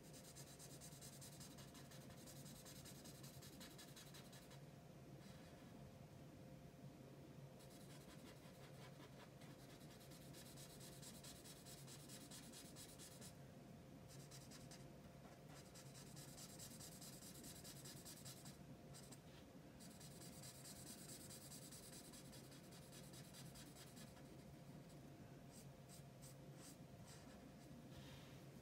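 Black felt-tip marker scratching faintly across paper as an area is coloured in, stroke after stroke, with a few short pauses.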